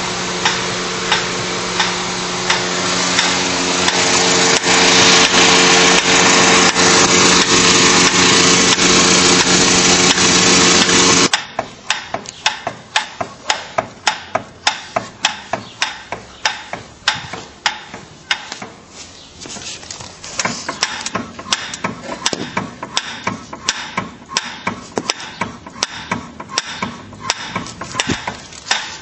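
Steering rack of a VAZ-21093 knocking in its mountings, a run of sharp clunks at roughly two to three a second, the sign of broken-off rack mounting studs. For the first eleven seconds the knocks sit over the steady running of the engine. That running sound then cuts off abruptly, leaving the knocks clear.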